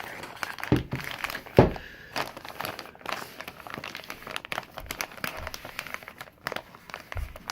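Plastic bag crinkling as it is handled, with a couple of dull thumps about a second in.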